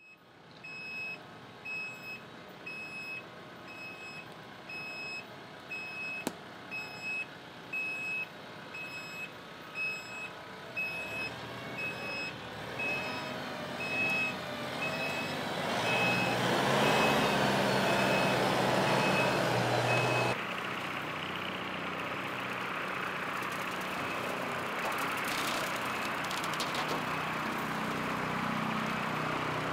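TYM tractor backing up with its reverse alarm giving a steady series of high beeps over the running engine. About twenty seconds in the beeping stops, and the engine and its rear-mounted rotary mower run louder and steadily as it cuts tall grass.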